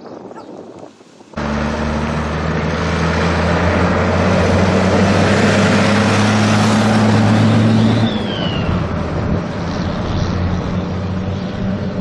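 Fire truck engine running loud and steady, with a heavy rush of road and wind noise; it cuts in suddenly about a second in and its pitch shifts about eight seconds in.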